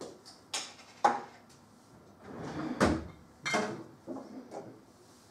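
A wooden lectern's under-shelf compartment being opened and rummaged in: several sharp knocks and clunks of wood and objects being handled, the sharpest about a second in, with a rustle building just before another knock near the three-second mark.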